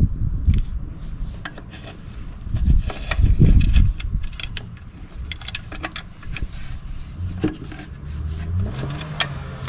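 Metal clinks, taps and clunks of a bracket and its bolts being fitted by hand in a car's engine bay, with heavier knocks about three seconds in.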